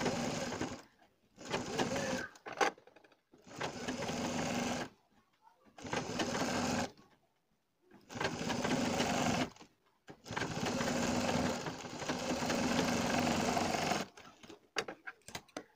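Sewing machine stitching a seam in six runs with short pauses between, the last and longest lasting about four seconds. A few light clicks follow near the end.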